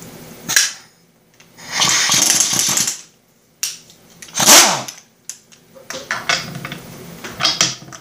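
Air impact wrench fired in several short bursts, the longest about a second, with near-silent gaps between them, used to take out the flywheel bolt of a small engine.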